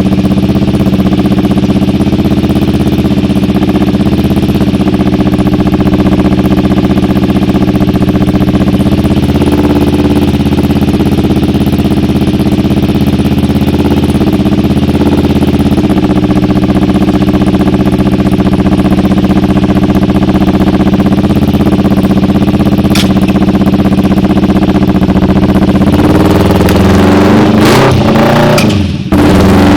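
2011 Kawasaki Ninja 250R's parallel-twin engine running at a steady idle through an Austin Racing full-system aftermarket exhaust. The sound changes about 26 seconds in and cuts out briefly near the end.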